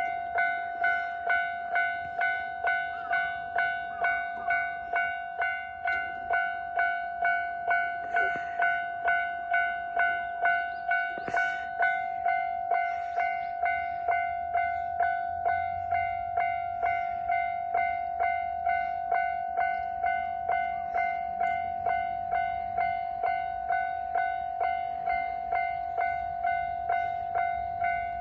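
Japanese level-crossing warning bell ringing steadily, an evenly repeated ding at about 1.7 strikes a second, signalling an approaching train. A low rumble joins about halfway through.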